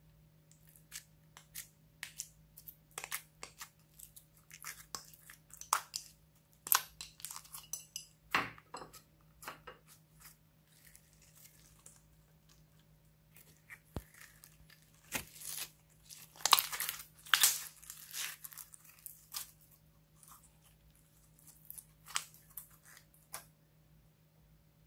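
Clear slime full of foam beads being handled, stretched and pulled: irregular sticky crackles, pops and crunches in clusters. The loudest run comes a little past halfway.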